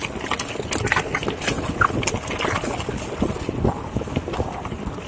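Mountain bike riding fast down a dirt singletrack: tyre noise over dirt and rock, with the bike rattling in quick, irregular clicks and knocks.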